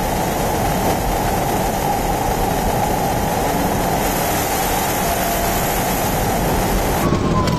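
Loud, steady rushing vehicle noise from the police pursuit footage, cutting off abruptly about seven seconds in.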